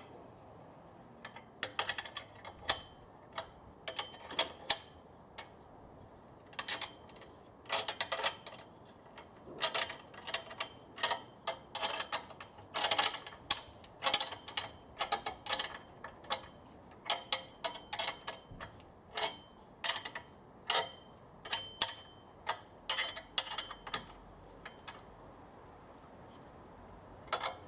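Irregular runs of sharp metallic clicks as the antenna mast clamps are tightened with a spanner, the clicks falling away near the end.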